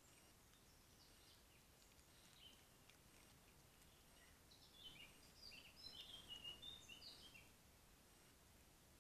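Faint songbird song: a burst of short, high twittering notes for about three seconds midway, over a quiet background hiss.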